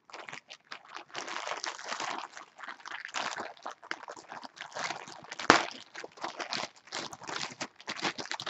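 Clear plastic packaging bag crinkling and rustling as it is handled and opened, with one sharp click about five and a half seconds in.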